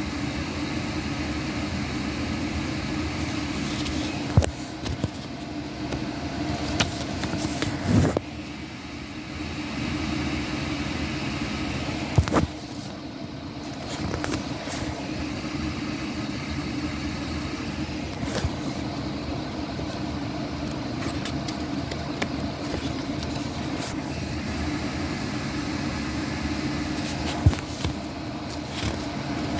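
A steady mechanical hum, broken by a few sharp knocks and clicks scattered through it.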